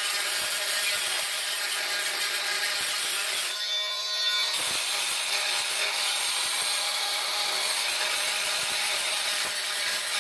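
Oscillating multi-tool with a diamond-grit grout-removal blade grinding old cement grout out of the joints between ceramic floor tiles: a steady buzzing scrape. It briefly thins for about a second near four seconds in.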